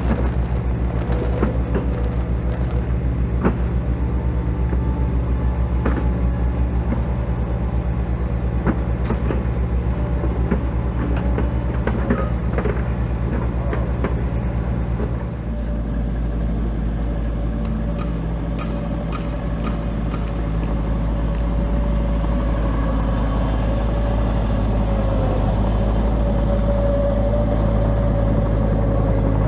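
Portable cement mixer running: a steady motor hum with the rumble of concrete tumbling in the drum and a few scattered knocks. The low hum shifts about halfway through, then carries on steadily.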